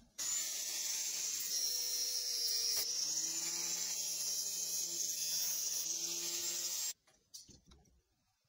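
A steady hiss that starts and stops abruptly, with a faint low hum under it through the middle.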